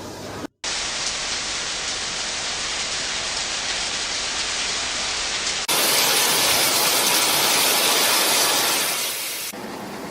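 Steady, rushing hiss of heavy water noise in cut-together stretches. It drops out briefly half a second in, then comes back louder and brighter from a little past the middle until near the end.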